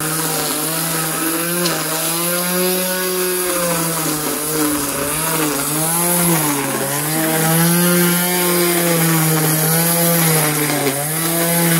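Corded electric string trimmer running steadily, its motor whine wavering slightly in pitch and sagging briefly about halfway through as it cuts into the grass.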